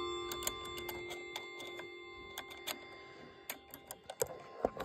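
Howard Miller regulator clock's chime ringing on and dying away over the first three seconds or so, with scattered light ticks and clicks throughout and a few louder clicks near the end.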